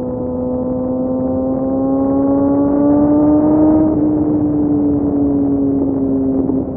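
Kawasaki Ninja ZX6R inline-four running through an M4 exhaust with the dB killer removed, the motorcycle under way. The engine note climbs gradually for about four seconds as it pulls, then eases down slowly, dropping near the end.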